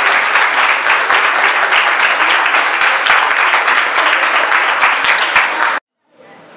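Audience applauding, a dense, steady patter of many hands that cuts off suddenly near the end.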